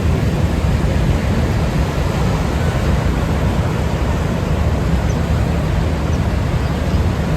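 Niagara River rapids rushing in a steady, loud, unbroken wash of water noise.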